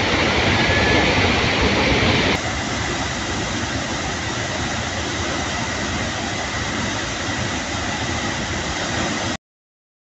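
Steady roar of a tall waterfall plunging into its pool: an even rush of falling water. It drops slightly in level after about two and a half seconds and cuts off suddenly about nine seconds in.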